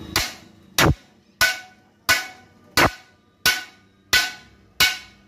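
Hammer striking the steel of a rolling shutter spring shaft assembly: eight steady, evenly paced blows about two-thirds of a second apart, each with a short metallic ring.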